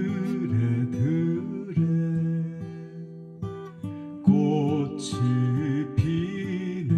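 Background music led by a plucked acoustic guitar, with a wavering, vibrato melody line over it.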